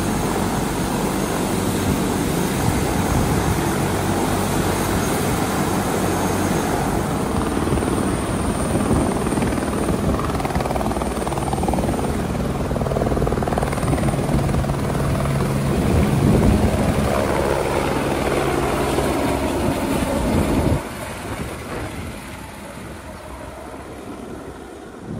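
Helicopter taking off close by, its rotor and engine running loud and steady with a swell partway through, then dropping off abruptly about twenty seconds in to a quieter rush.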